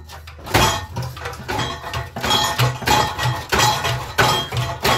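Repeated metallic clanks and clinks as a steel exhaust pipe is worked and knocked about under the back of a car, sharp knocks coming every half second or so.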